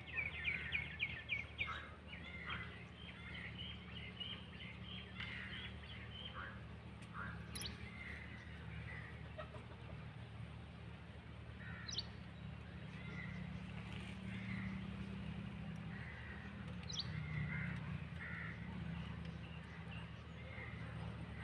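Birds chirping and calling, with a quick run of chirps at the start and scattered short calls after, over a steady low hum.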